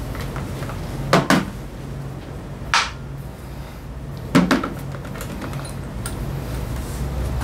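Sharp double knocks of tools or parts being handled, twice about three seconds apart, with a short scrape between them, over a steady low hum.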